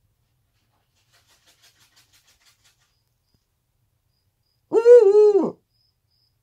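Eurasian eagle-owl giving one short two-part 'ugu' call, under a second long, its pitch dipping in the middle, about four and a half seconds in. It is preceded by a few faint ticks.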